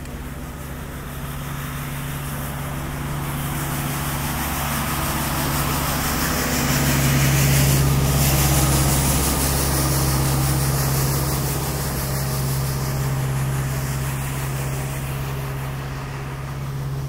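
Truck engine of a plough truck out on an ice rink, running steadily at low revs with a hiss. It grows louder toward the middle as it comes close, then eases off a little.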